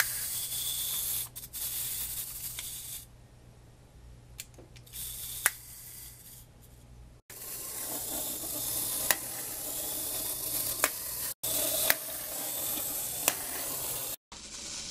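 Wind-up toy's spring-driven clockwork running, a continuous buzzing whirr as the toy rolls and chomps, with scattered sharp clicks. The whirr drops away for a few seconds in the middle and the sound cuts out abruptly a few times.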